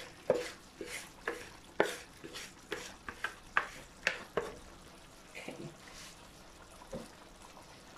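Wooden spoon knocking and scraping wet, rinsed basmati rice out of a bowl into a pot: about ten short taps, roughly two a second, through the first four and a half seconds, then only soft, occasional sounds.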